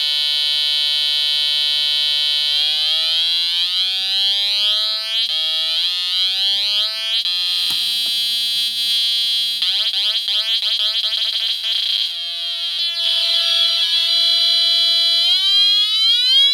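Atari Punk Console, a two-555-timer DIY synth, sounding a loud, harsh buzzy tone rich in overtones. Its pitch holds, then steps down in runs of short jumps and slides back up, with a rising sweep near the end.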